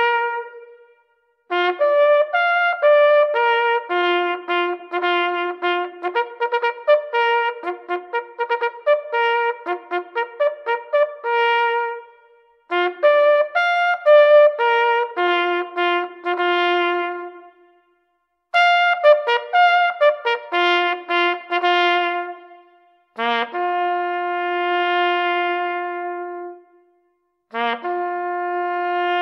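Solo trumpet playing a melody in phrases of quick notes, each phrase ending on a long held low note, with short pauses between phrases.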